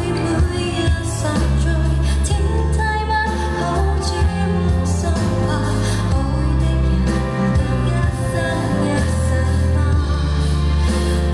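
Live female vocal singing a Cantonese pop song into a handheld microphone over band accompaniment with a steady, sustained bass line, heard through the concert sound system.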